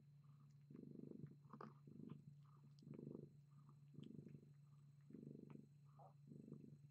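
Faint domestic cat purring from a mother cat nursing her litter, swelling and easing about once a second with each breath, with a few light ticks.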